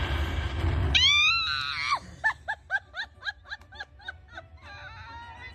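A woman's high-pitched excited scream about a second in, rising in pitch and lasting about a second, at a big slot-machine jackpot win, followed by a fast run of short pitched cries and then a held high note near the end.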